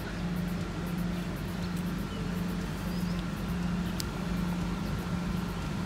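A low, steady engine-like hum that swells and fades about every 0.7 seconds, with a faint high whine above it and a single sharp click about four seconds in.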